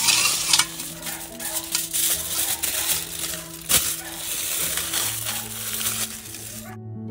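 Aluminium foil crinkling and crackling as it is folded around a banana-leaf-wrapped chicken parcel, stopping abruptly near the end. Soft background music with steady tones underneath.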